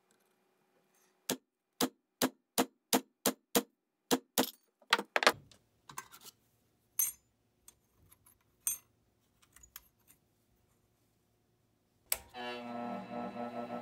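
A hammer strikes a chisel on a steel fork about a dozen times, the blows coming faster, cutting the handle off the fork against a metal plate. A few light metal clicks follow as the pieces are handled. Near the end a bench grinder switches on and spins up with a steady, rising hum.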